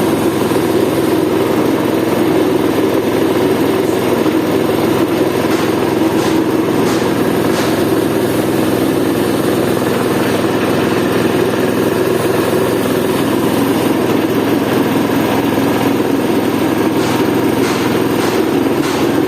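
Spice grinding machine running with a steady mechanical drone, with a few faint ticks about six seconds in and again near the end.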